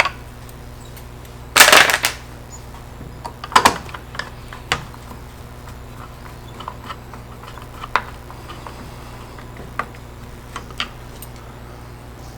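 Scattered clicks and rattles of small screws and the plastic tool housing being handled during reassembly, with a louder rattle about two seconds in and another shortly after, then fainter isolated clicks.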